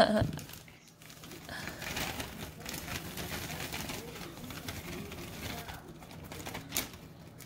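Plastic bag of mini marshmallows crinkling softly as the marshmallows are poured out of it, with a faint wavering hum or murmur underneath.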